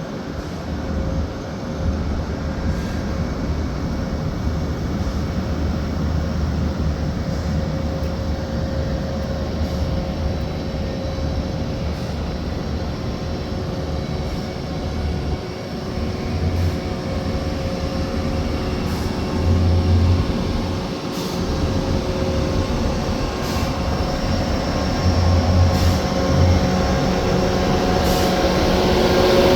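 Mobile crane's diesel engine running steadily under load during a heavy lift, with a low hum and a faint steady whine, gradually getting louder toward the end.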